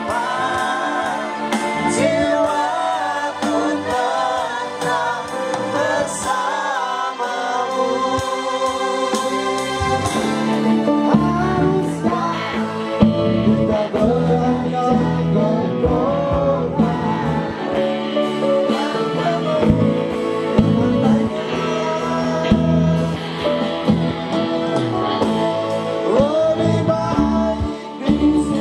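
Live band with electric guitars and keyboard accompanying singing into microphones through a PA. The bass end of the band fills out about ten seconds in.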